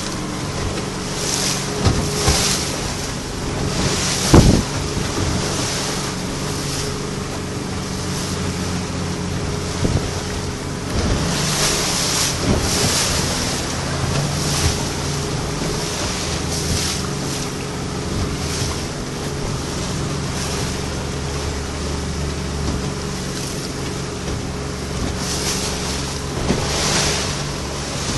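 Twin Yamaha 150 outboard motors running steadily as the boat moves through open water, under wind buffeting the microphone and the rush of water and wake. A few short thumps, the loudest about four seconds in.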